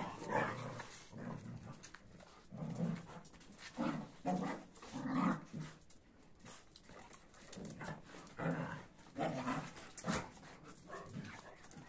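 Big dogs, a Kuvasz and a Boerboel, growling and snarling at each other in short bursts as they scuffle.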